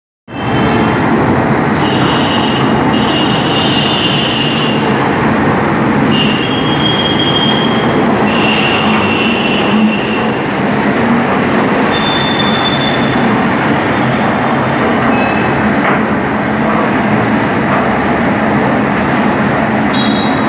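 Loud, steady machinery noise with several short high-pitched squeals that come and go.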